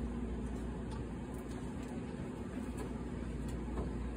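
Room tone: a steady low machine hum with a faint hiss and a few light clicks.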